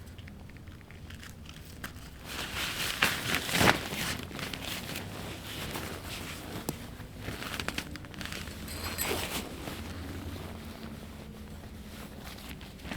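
Irregular rustling and crinkling, as of gear or material being handled, in two bouts, over a steady low hum.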